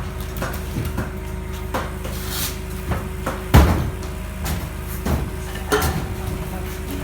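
A truck engine idling steadily while irregular knocks and metallic clanks sound, the loudest about three and a half seconds in.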